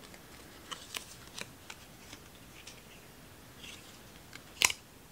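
Faint handling noises of paper packaging and a small card: scattered soft clicks and light rustles, with one sharper click near the end.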